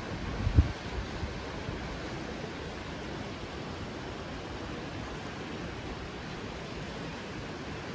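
Steady rushing noise of wind and sea surf, with a few low thumps in the first second, the loudest about half a second in.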